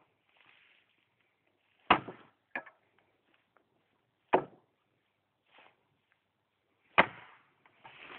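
Axe chopping into the base of a tree trunk: three heavy blows a couple of seconds apart, with a lighter knock just after the first.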